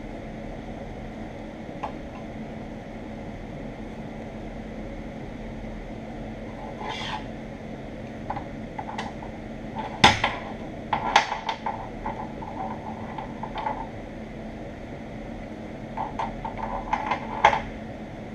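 Metal parts and hand tools clinking and clanking now and then over a steady machine hum, the loudest clank about ten seconds in.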